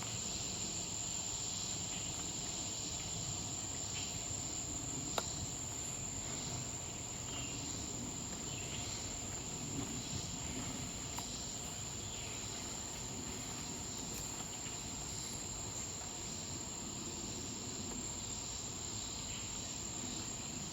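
Summer insect chorus: a steady, unbroken high-pitched drone, with a single faint click about five seconds in.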